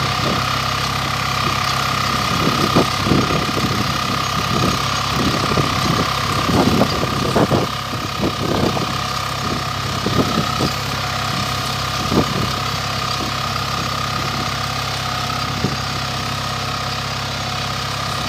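Captain mini tractor engine running steadily, with a run of scattered knocks and clanks from about 3 to 12 seconds in.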